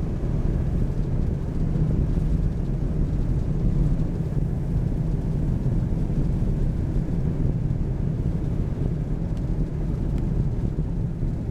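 Car cabin noise while driving: a steady low rumble of tyres and engine.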